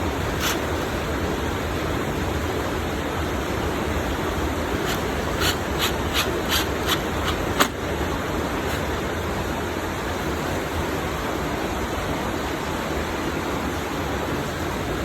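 Steady hiss, with a quick run of about eight small sharp clicks about five seconds in, ending in one louder click: screws and tools handled while screws are fitted into a speaker cabinet.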